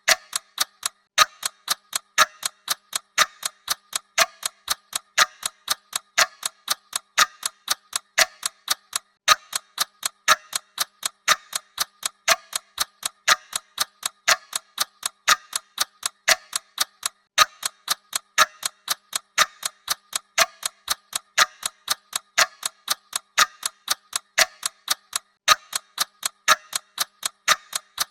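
Clock ticking sound effect: steady, evenly spaced ticks.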